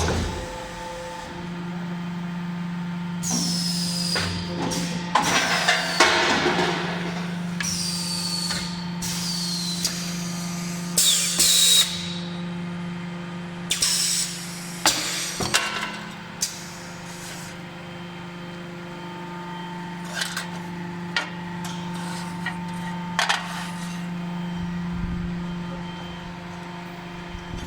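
Four-station rotary pressure die casting machine for ceiling fan rotors running: a steady motor hum, with several loud hisses of air in the first half, some sliding down in pitch, and scattered short clunks and clicks further on.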